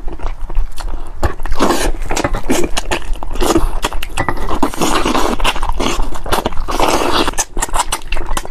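Close-miked eating of a braised spicy chicken head: wet sucking, lip-smacking and chewing, with many quick clicks and smacks one after another.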